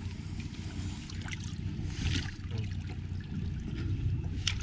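Water splashing and sloshing at the side of the boat as a large striped bass is held in the water and moved back and forth to revive it before release, over a low steady hum.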